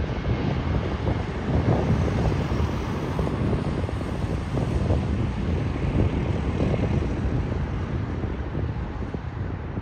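Twin-engine jet airliner on final approach, its engines making a steady rumble as it passes and draws away toward the runway, easing slightly near the end. Wind buffets the microphone.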